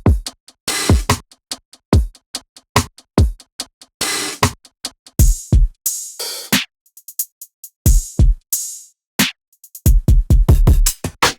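Programmed R&B drum loop from a sample pack: deep kicks, snare or clap hits and hi-hat ticks, with no melody. It thins to a few faint ticks about two-thirds through, then comes back with fast rolls of low kicks near the end.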